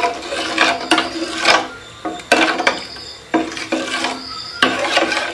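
Steel spoon stirring and scraping thick urad dal porridge around a small stainless steel pot, in repeated strokes roughly once a second with a light metallic ring. The porridge is being kept moving as it thickens over the flame so it does not go lumpy.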